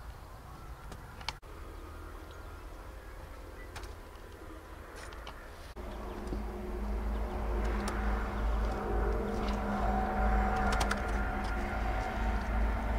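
Scattered light clicks, then about six seconds in a steady motor drone with a low rumble starts and grows louder, holding to the end.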